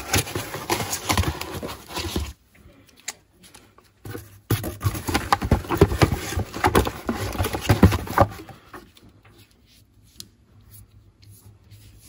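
Handling noises from small sight units and their packaging: a clatter of clicks, knocks and rustling in two busy bursts, the second from about four and a half seconds in, then it goes quiet.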